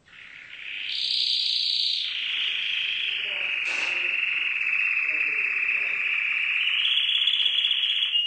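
Domestic canary singing one long, rapid trill. It steps up in pitch about a second in, drops back a second later and rises again near the end.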